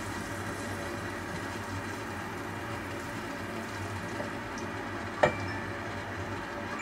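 Chicken, egg and broth for oyakodon simmering in a pan, a steady low sizzle and bubbling. A single sharp knock comes a little over five seconds in.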